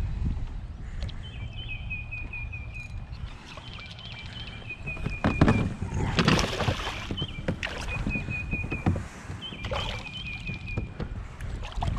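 Water splashing and sloshing beside a kayak as a hooked largemouth bass thrashes and is brought in, loudest about five to seven seconds in and again near the ninth second. Wind rumbles on the microphone, and a bird repeats short high notes in quick runs.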